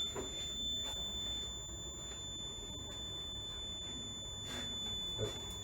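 A fire alarm control panel's piezo buzzer sounds one steady, unbroken high-pitched tone, the kind of signal a panel gives for a trouble condition once a device is unplugged. A few faint knocks are also heard.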